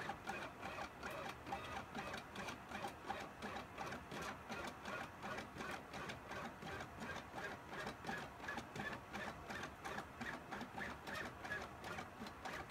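Motors of a gantry pen-plotting machine driving the pen across paper: a busy run of short whirring pulses, about three or four a second, shifting in pitch as the moves change.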